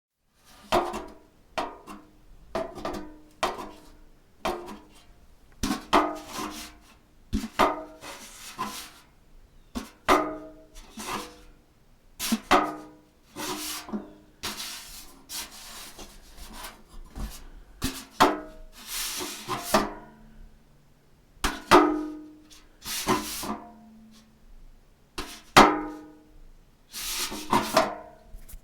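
A metal trash can full of trash being knocked and jostled: a long series of irregular metallic clanks and bangs, each ringing briefly, some drawn out longer.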